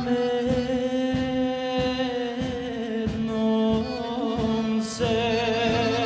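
Male vocalists singing a sevdalinka live with band accompaniment: long held notes with vibrato over a steady beat of somewhat under two strokes a second, with a new sung phrase starting about five seconds in.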